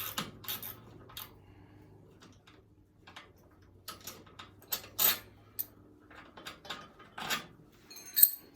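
Hand tools and metal parts clinking and clattering as they are handled, in irregular knocks, with one sharp, ringing metallic clink near the end.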